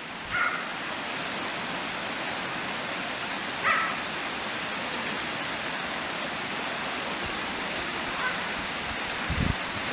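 Three short, high animal calls a few seconds apart, over a steady rushing noise.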